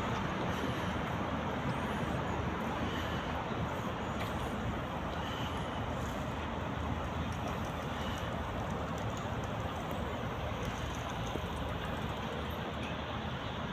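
Steady din of road traffic on a nearby city road, cars passing continuously.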